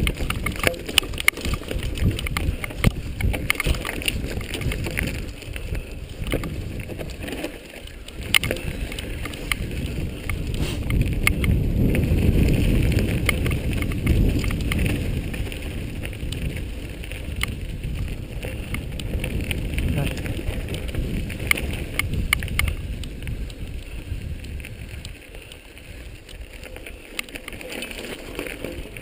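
Wind rushing and buffeting over an action camera's microphone as it moves fast along a rough dirt trail, with scattered clicks and knocks. The rush swells about twelve seconds in and eases near the end.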